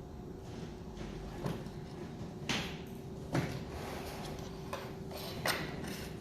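Several short clicks and knocks of plastic stand-fan parts being handled and fitted together during assembly, the loudest about halfway through, over a steady faint hum.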